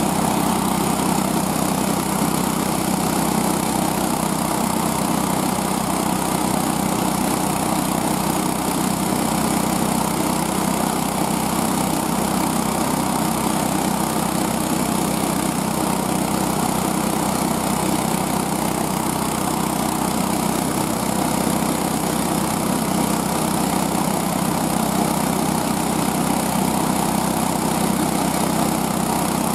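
Small single engine of a homemade motorized sled running steadily at an even speed while the sled travels.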